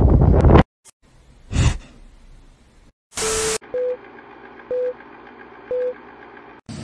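Wind buffeting the microphone cuts off, then a short whoosh, a brief burst of static, and three short beeps a second apart from a film-leader countdown.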